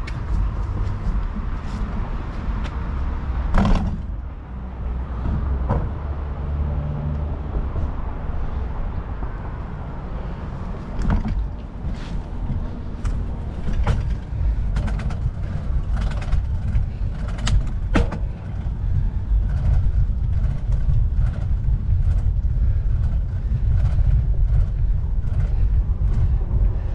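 Steady low rumble of wind and riding noise from a moving bicycle, with scattered clicks and knocks throughout.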